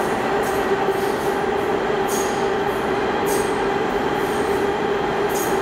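New York City subway train running through the station at speed without stopping. A steady rushing rumble under a held whine, with a short clack from the wheels over the rail joints about once a second.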